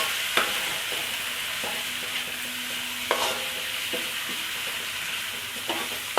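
Fried shallots, ginger, lime leaves, bay leaves and lemongrass sizzling steadily in hot oil in a pan while being stirred, with a few sharp knocks of the spatula against the pan.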